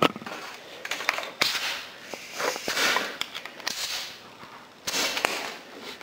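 Compressed air hissing in several short bursts, each under a second, with a sharp click at the start, as a PVC air reservoir is filled through a hose from an air compressor.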